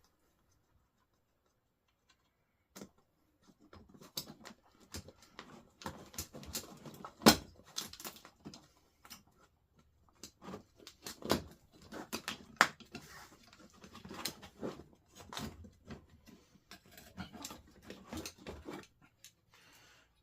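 Irregular clicks, taps and clinks of a metal door handle, its screws and hand tools being handled, starting a few seconds in, with one sharper knock about seven seconds in.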